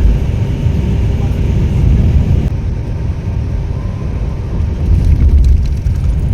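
Volvo coach on the move: a loud, steady low rumble of engine and road noise.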